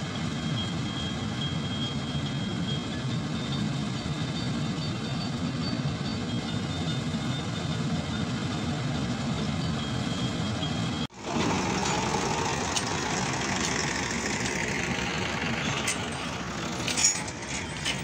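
Darshan 9000 4×4 combine harvester running while harvesting: a steady engine drone with a faint high whine. About 11 s in the sound cuts out for an instant and changes to a thinner, hissier noise with a few sharp clicks near the end.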